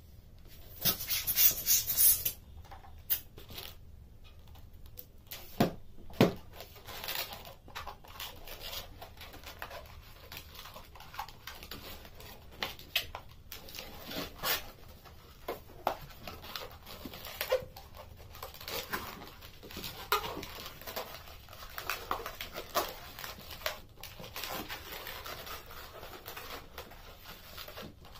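Latex twisting balloons being handled and twisted, giving irregular rubbery squeaks, rubs and clicks. A louder rushing noise lasts about a second and a half near the start.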